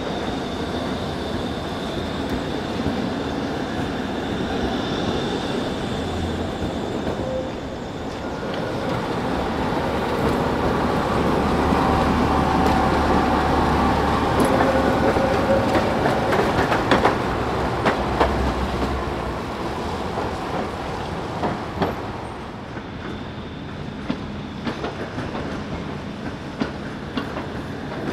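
Trams running along wet street tracks: a steady rolling rumble and hiss that swells as a tram passes close by in the middle, with sharp clicks of the wheels over rail joints and points in the second half.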